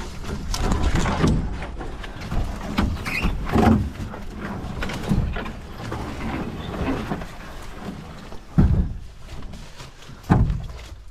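Uneven footsteps and rustling through brush and forest-floor litter by someone carrying a canoe overhead on a portage trail, with two heavier thumps near the end.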